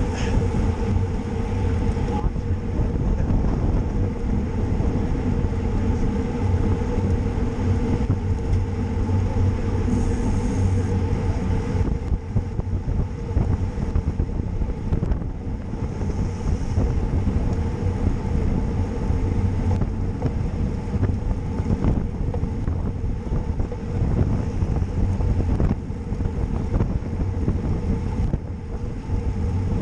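Steady wind noise buffeting the microphone of a camera riding along on a bicycle, with a constant low hum underneath.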